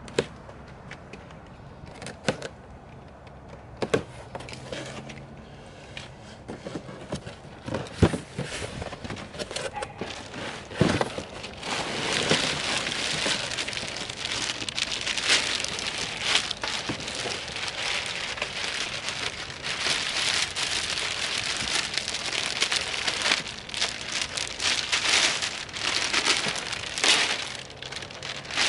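A cardboard box being opened: scattered knocks and handling noises, then from about eleven seconds in, a continuous loud crinkling and rustling of plastic packaging as the rubber floor mats are unwrapped.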